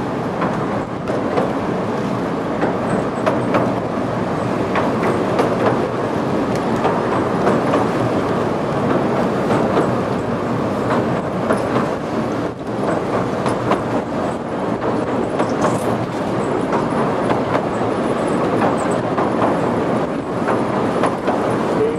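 Oigawa Railway Ikawa Line passenger train running, heard from inside the carriage as it crosses a steel truss bridge: a steady rumble of wheels on rail with frequent sharp clicks.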